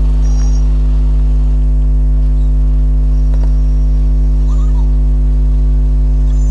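Steady, loud low electrical hum at mains frequency with a stack of overtones, unchanging throughout, with a few faint high chirps on top.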